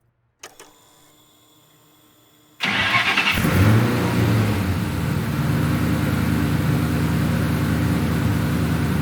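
Ford Mustang GT's 4.6-litre V8 starting about two and a half seconds in, after a couple of clicks and a faint hum; it flares briefly, then settles into a steady idle.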